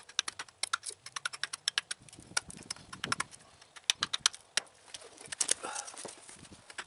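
Modified carpenter hatchet with an undercut 'Chicken Hawk' bit taking quick, light carving strokes at a split stick against a wooden chopping block. It makes a rapid, uneven run of sharp chopping taps, several a second, with chips coming off.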